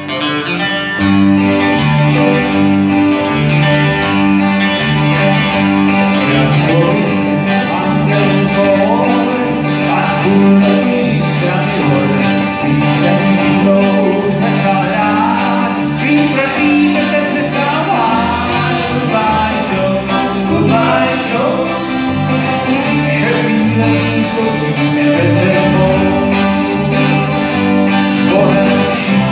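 Small country band playing live on acoustic guitar, 12-string guitar, electric guitar and bass guitar: strummed chords over a steady bass line, with a bending melody line on top.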